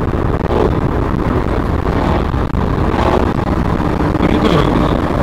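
Car driving at speed, heard from inside the cabin through a dashcam: a steady drone of engine and tyre noise.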